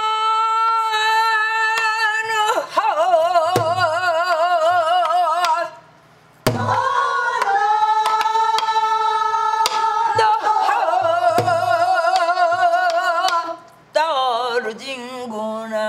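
A woman singing Korean gueum, a wordless vocal melody, in long held notes with a wide, wavering vibrato, broken by two short pauses, about six seconds in and near the end. Sparse strokes on a buk barrel drum, beaten with a stick, keep time under the voice.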